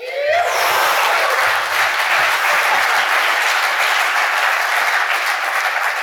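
Audience applause breaking out all at once and continuing steadily, thinning slightly near the end.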